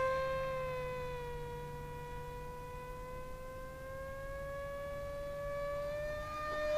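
Brushless electric motor and propeller of an AtomRC Bat delta-wing RC plane in flight: a steady whine that sags a little in pitch over the first second or so, then slowly climbs and grows louder near the end.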